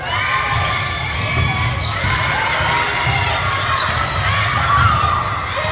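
Basketball game in a gym: a ball bouncing on the court amid overlapping calls from players and spectators, echoing in the hall.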